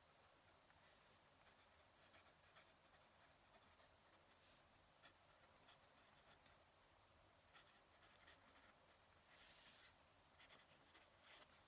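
Fountain pen nib scratching faintly across paper in short strokes, with a longer stroke about nine seconds in.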